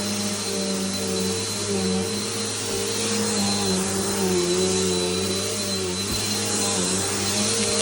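Bissell PowerForce bagged upright vacuum cleaner running steadily. Its motor hum wavers slightly in pitch under a thin, steady high whine.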